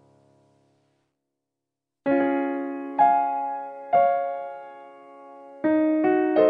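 Background piano music: a note dies away, a second or so of silence follows, then single notes are struck about once a second. Near the end a chord comes in, followed by a few notes in quicker succession.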